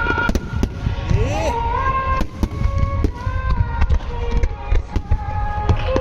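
Large aerial fireworks of a display set to music: repeated low booms and sharp cracks from the shells bursting overhead, over loudspeaker music with long held notes.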